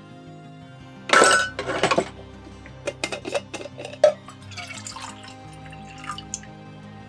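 Metal camp mugs and cups clinking and scraping as they are handled and unstacked, the loudest scrape about a second in, followed by a few sharp clinks and water poured from one metal cup into another, over background music.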